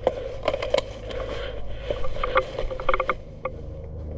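Irregular sharp clicks and knocks, a few of them in quick clusters, over a steady low rumble.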